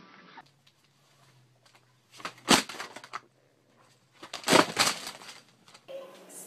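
Two short bursts of clattering, crackling noise about two seconds apart, over a faint steady low hum.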